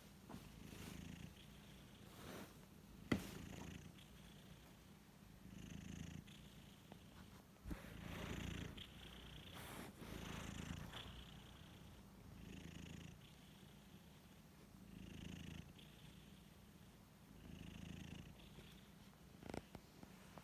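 Sleeping cats snoring softly, one low snoring breath about every two and a half seconds. A sharp click comes about three seconds in.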